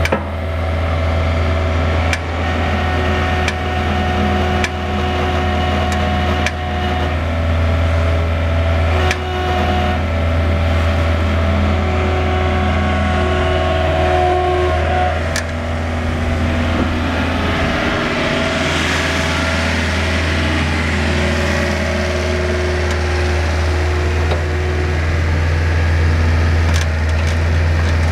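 Yanmar B50 mini excavator's diesel engine running steadily, with a higher whine coming and going over it and a few sharp clicks. A hiss rises for several seconds past the middle.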